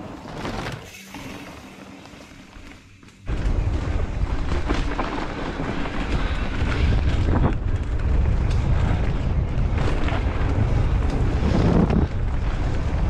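Wind buffeting a body-mounted action camera's microphone and mountain bike tyres rumbling over a dirt trail on a fast descent, cutting in abruptly about three seconds in after a quieter start.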